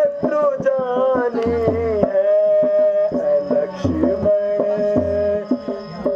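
Live harmonium and hand-drum accompaniment. A voice sings a wavering melody for about the first two seconds, then the harmonium holds steady notes while the drum keeps up sharp strokes and deep bass thumps.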